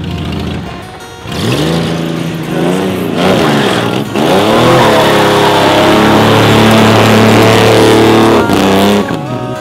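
1978 AMC Pacer's engine revving hard while its wheels spin on gravel. It revs up and drops back twice, then is held at high revs for about four seconds over the noise of spraying gravel, dropping off near the end.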